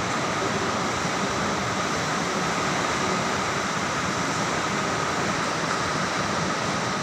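Heavy storm rain falling steadily, an even unbroken noise with no distinct drops or breaks.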